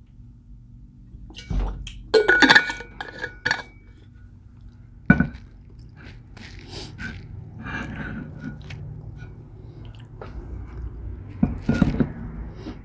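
Eating at a table: utensils and dishware clinking and knocking, with a run of ringing clinks about two seconds in, a sharp knock about five seconds in and another clatter near the end, amid quieter chewing.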